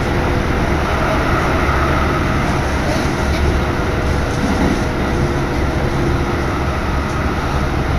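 Steady running noise of a Keikyu Main Line electric train heard from inside the carriage while it travels at speed: a low rumble with a faint steady hum through it.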